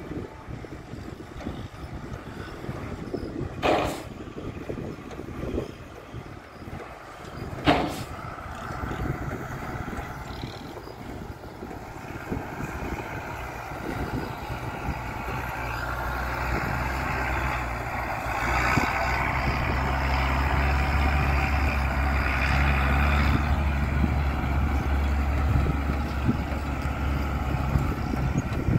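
A dump truck's diesel engine running and growing steadily louder, loudest over the second half. Two brief sharp sounds come about four and eight seconds in.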